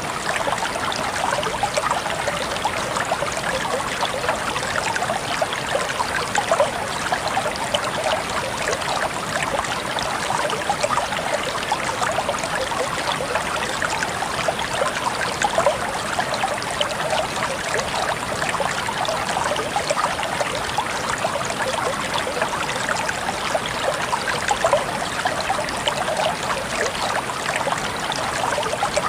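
A stream of water trickling and babbling, a steady rush full of constant small splashes and droplet ticks, unchanging throughout.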